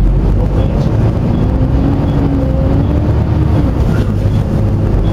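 Volvo B7TL double-decker bus running with its engine cooling fan loud: a steady low drone, with a fainter tone that slides up and then back down in pitch midway.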